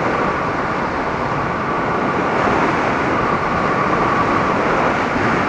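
Riding noise from a Kawasaki Vulcan S motorcycle at speed, ridden without its windscreen: a steady rush of wind over the bike's running.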